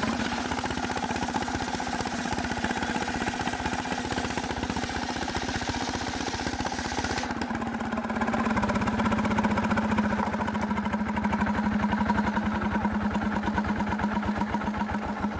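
Small petrol engine of a sawmill running steadily at a constant speed. A high hissing noise over it stops abruptly about seven seconds in, while the engine keeps running.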